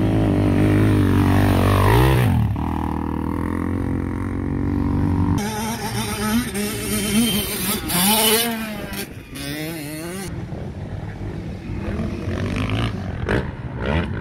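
Motocross dirt bikes on the track. One bike's engine runs steadily and drops in pitch as it goes past about two seconds in. A second bike then revs up and down through the gears as it passes close, loudest around eight seconds, before fading away.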